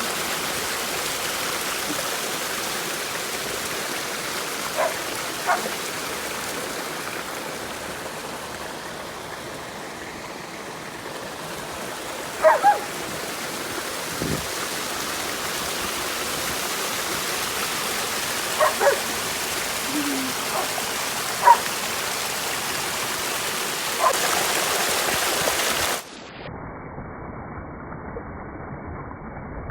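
Creek water rushing steadily, with a few brief sharp calls over it. Near the end it cuts off suddenly to a quieter, duller background.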